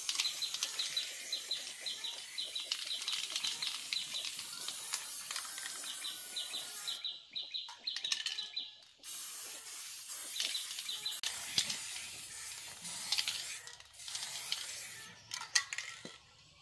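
Aerosol spray paint can spraying onto a metal engine casing in long hisses. The hiss pauses briefly twice around the middle, then comes back in shorter bursts near the end.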